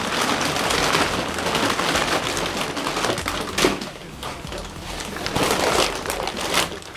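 Crinkling and crunching of a plastic snack packet being crushed by hand, a dense continuous crackle with a few louder snaps, easing somewhat after about three seconds.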